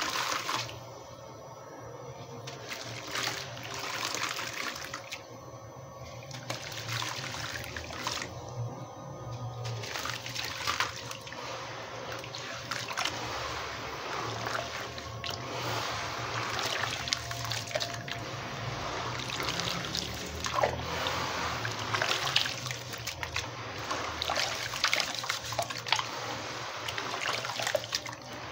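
Gritty cement crumbled by hand into a tub of water: trickling splashes of falling grit at first, with short pauses, then a denser run of wet crunching and squishing as hands knead the soaked cement underwater.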